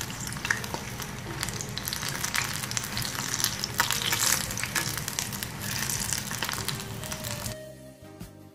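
Hot oil sizzling and crackling steadily around batter-coated boiled-egg fritters (egg bajji) deep-frying in an iron kadai. Near the end the sizzle drops away and light plucked-string music comes in.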